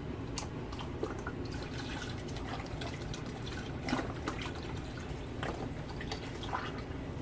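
Chicken stock pouring from its container into a pot of roux: irregular drips and small splashes over a steady low background.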